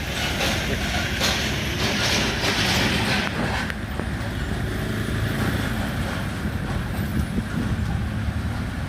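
Train passing over a level crossing: a rhythmic clatter of wheels on the rails over a steady low rumble. The clatter stops sharply a little under four seconds in, and the low engine rumble of waiting road vehicles carries on.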